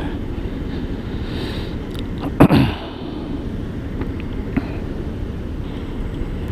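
Steady low rumble of street traffic. About two and a half seconds in comes one short, sharp burst that falls in pitch: a person sneezing.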